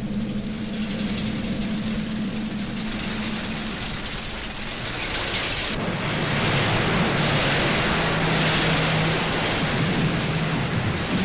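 Propeller fighter plane's piston engine running, a steady drone with a rushing noise. It becomes louder and fuller about six seconds in.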